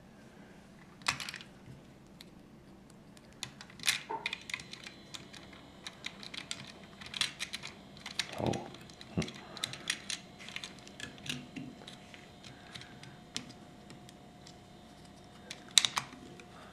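Small plastic Lego pieces clicking and clattering as hands fit a minifigure into the rally car's cockpit and press the bricks together. Irregular light clicks throughout, with sharper snaps about a second in, around four seconds in and near the end.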